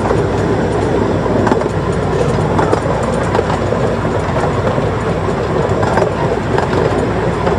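Miniature railway train running along the track, heard from on board: a steady rumble and clatter of wheels on the rails, with occasional faint clicks.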